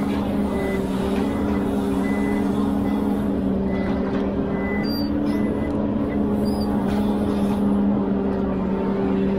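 Ponsse Elephant forwarder's engine and crane hydraulics running steadily as it loads logs. The low hum shifts slightly in pitch about halfway through, with short faint high beeps here and there.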